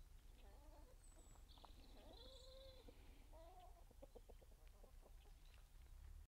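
Chickens clucking faintly, a run of short, bending calls; the sound cuts off abruptly near the end.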